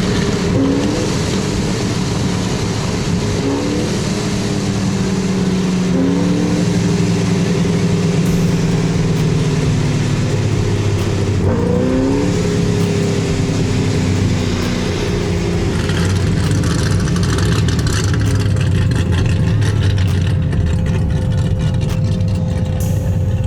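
Supercharged 6.2-litre LT1 V8 of a Camaro SS running through an AWE Touring cat-back exhaust while the car is driven. It gives a deep, continuous drone, and its pitch climbs in short sweeps several times during the first half before settling into a steadier note.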